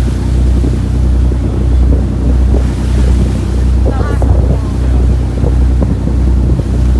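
Boat under way: a steady low engine hum with wind buffeting the microphone and water rushing past the hull.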